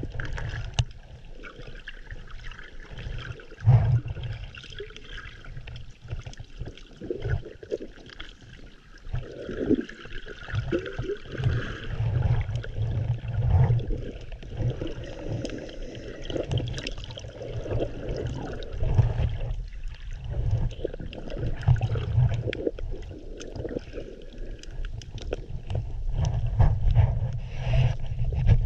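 Water sloshing and gurgling heard underwater through a GoPro's microphone: an uneven low rumble with scattered small clicks and knocks, and a louder jolt about four seconds in.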